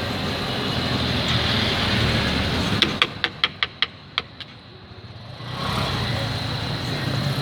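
Steady street traffic noise, with a quick run of about seven sharp clicks or taps about three seconds in.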